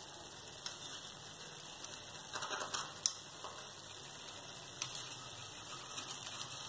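Onion masala with a dollop of curd sizzling in ghee in a kadai on the flame: a steady sizzle with scattered crackles and sharper pops, clustered about two and a half to three seconds in and again near five seconds.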